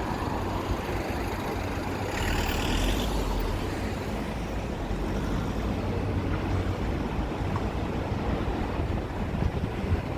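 City street traffic: a heavy vehicle's engine running steadily, with a brief hiss about two seconds in.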